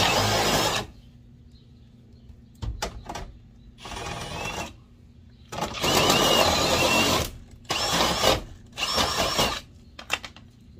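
Cordless drill running a step bit through metal diamond-plate sheet, in several short bursts with pauses between, its whine rising and falling with each burst. A few light clicks near the end.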